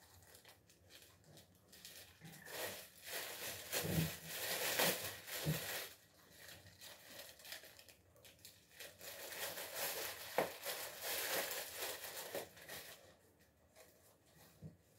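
Thin clear plastic bag crinkling and rustling as peeled garlic cloves are handled, in two spells of a few seconds each.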